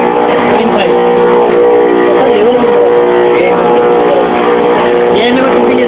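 LX Series CNC engraving router's spindle running as its bit engraves lettering into a marble slab: a steady whine of several tones over a hiss of cutting noise, wavering briefly in pitch a couple of times.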